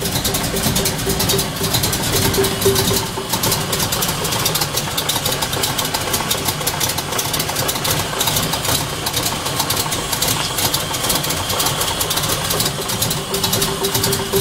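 GM LT1 V8 engine running, with a fast mechanical ticking throughout and a steady whine that fades out about three seconds in and returns near the end. This is an unidentified strange noise the owner is trying to trace.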